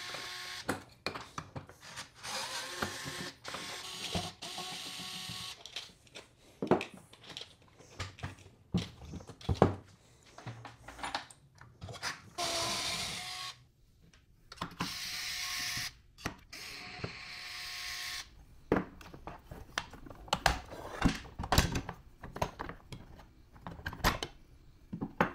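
Screws being undone and a plastic leg cover handled: a string of clicks and knocks from tools and parts, with a few short stretches of steady noise between them.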